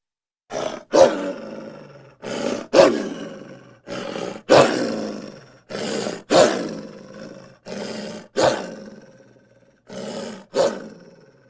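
A wolf snarling and growling in six loud, rough bursts about two seconds apart. Each burst is a short lead-in sound followed by a louder, sharp snarl that trails away.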